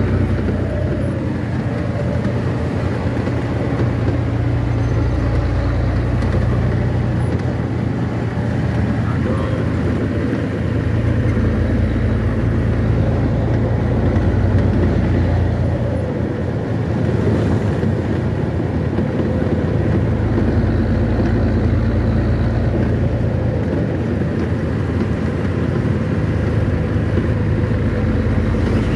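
Steady low drone of a truck's engine and tyres on the road, heard from inside the cab while cruising.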